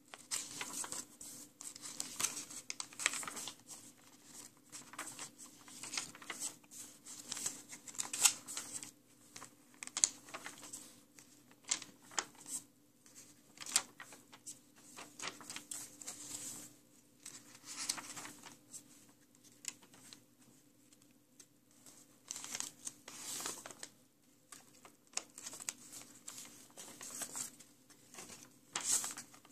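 Paper pages of a sketchbook being turned by hand one after another: repeated, irregular rustles and flicks of paper.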